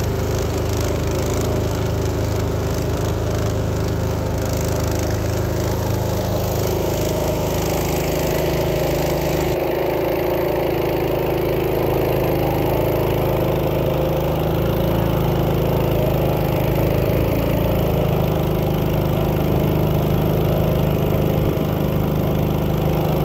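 Small boat engine running steadily under way, heard from on board.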